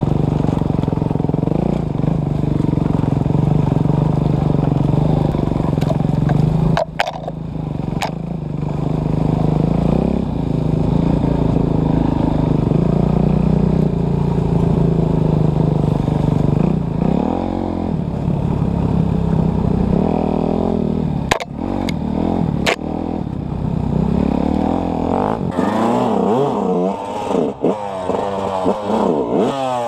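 Off-road dirt bike engine running under the rider on a rough trail, its pitch rising and falling with the throttle, with a few sharp knocks along the way. In the last few seconds the engine note swings quickly up and down in pitch.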